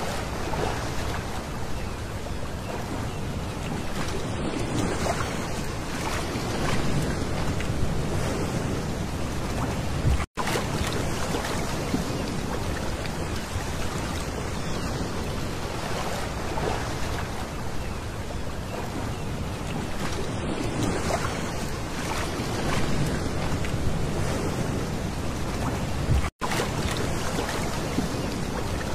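Small waves washing in over a pebble beach: a steady hiss of surf rising and falling in slow swells, cutting out to silence for an instant twice.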